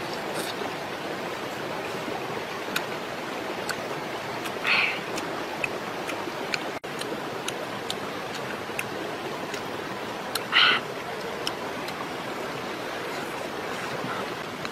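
Steady rushing noise like running water, with soft clicks of eating and two short hissing sounds, about five and ten seconds in, from a person eating grilled fish by hand.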